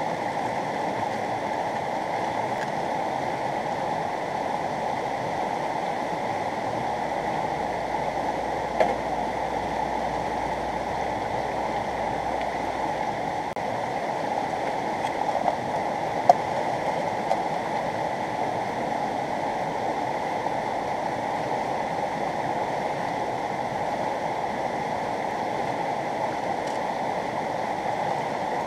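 Fast-flowing river rushing over rocks and rapids, a steady wash of water noise. A couple of brief knocks stand out, about a third of the way in and just past halfway.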